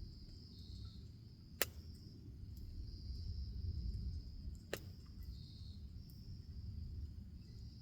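Wood bonfire burning with a low rumble and two sharp pops, about a second and a half in and again near five seconds, over a steady high chirring of insects.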